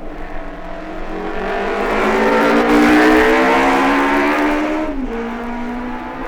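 A 1950s 500cc racing motorcycle accelerating away, its engine note climbing in pitch and growing loud, then dropping suddenly about five seconds in at a gear change before pulling on steadily. The sound is a period recording played from a vinyl record.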